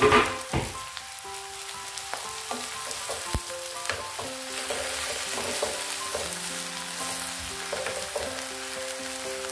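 Chopped vegetables sizzling in hot tempered oil in a clay pot as they are stirred with a wooden spoon, with a loud burst of sizzle right at the start as more vegetables go in.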